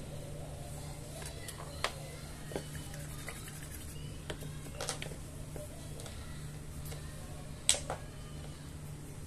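A steady low hum with a handful of scattered light clicks and taps, the loudest about three quarters of the way through.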